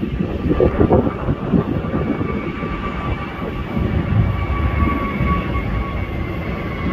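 Frontier Airlines Airbus A320-family jet climbing out after takeoff: the loud rumble of its turbofan engines at takeoff power, with a steady high whine that drops slightly in pitch as it pulls away.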